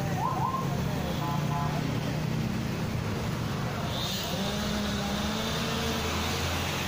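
Congested road traffic: motorcycle and car engines idling and creeping along, with a small box truck driving slowly past close by near the end.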